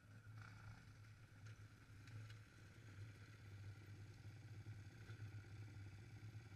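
Dirt bike engines, faint and muffled, a low steady hum that grows a little louder as the bikes come down the slope and pull up.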